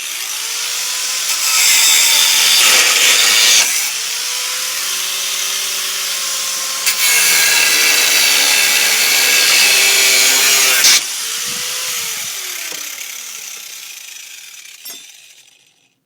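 Harbor Freight Drill Master 4½-inch angle grinder spinning up and biting into steel twice, once for about two seconds and then for about four, running free in between. About eleven seconds in it is switched off and winds down with a falling whine.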